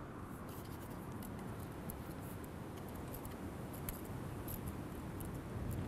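Light, scattered clicks and scratching as fingers work a hooklength off a plastic rig winder, over a steady low rumble.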